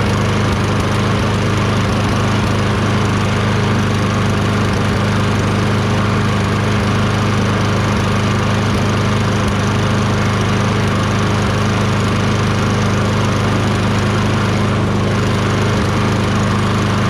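Tecumseh 6.5 hp engine of a Toro Recycler self-propelled lawn mower running steadily after a carburetor cleaning in which a clogged pilot jet passage was cleared; it runs much better now.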